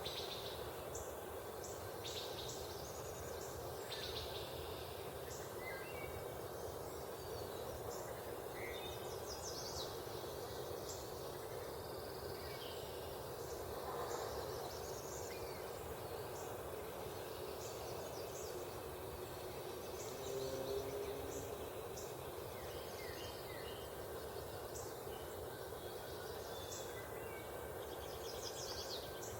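Several wild birds chirping and calling in short, repeated high notes over a steady low rush of background noise, with a brief low call about twenty seconds in.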